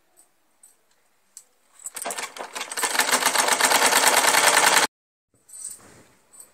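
Sewing machine stitching cloth: a rapid, even stitching rhythm starts about two seconds in, builds up to full speed, then cuts off suddenly about five seconds in.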